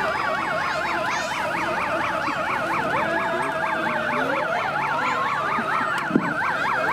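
Several emergency vehicle sirens sounding at once. A fast yelp rises and falls about four or five times a second over a slower wail that sinks and then climbs again. A short sharp knock comes about six seconds in.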